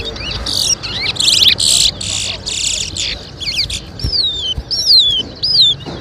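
Towa towa (chestnut-bellied seed finch) singing a competition song. It opens with a quick run of harsh, buzzy notes, then gives a series of clear whistles that each slide downward in pitch.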